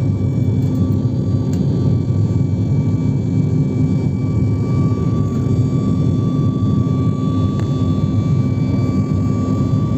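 Cabin noise of an airliner climbing just after takeoff: the jet engines give a loud, steady rumble with a thin steady whine over it.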